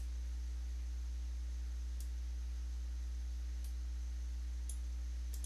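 Steady low electrical hum on the recording, with a few faint clicks.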